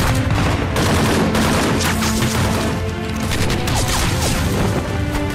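Rapid automatic gunfire and blasts from a film battle scene, laid over dramatic action music.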